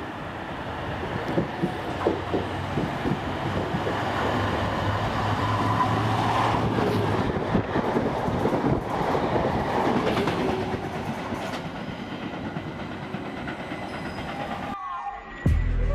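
A pair of GBRF Class 73 locomotives hauling a test train passes through a station at speed. The rumble builds as the train approaches, peaks as it rushes by with wheels clattering over the rail joints, then fades away.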